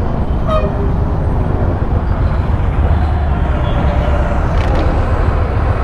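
Steady rumble of a vehicle moving through road traffic, with a short horn toot about half a second in.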